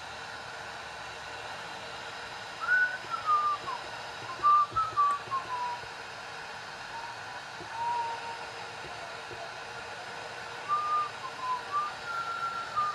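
A person whistling a wandering tune in three short phrases, each made of gliding notes, over a steady background hiss.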